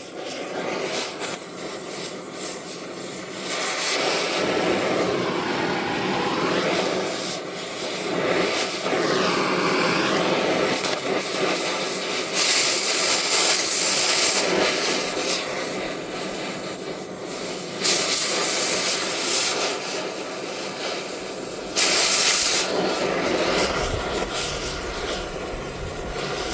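Oxy-fuel cutting torch burning with a steady hissing roar as it heats a seized wheel bolt, with three louder blasts of a second or two each when the cutting oxygen is opened to blow through the bolt.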